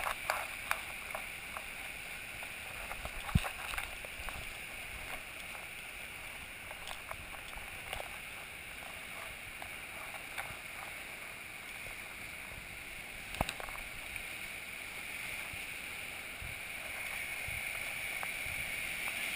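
Surf washing and breaking over boulders along a rocky shore, a steady rush that grows a little louder near the end. A few sharp knocks stand out, the loudest about three seconds in and again about thirteen seconds in.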